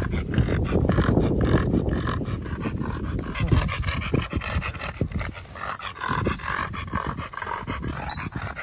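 A pit bull-type dog panting hard with its tongue out, in quick, rapid breaths, with a low rumble over the first few seconds.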